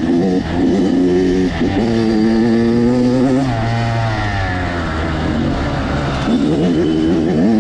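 Dirt bike engine running under load, its pitch rising and falling as the throttle opens and closes, with a clear climb in revs about three seconds in and again near the end.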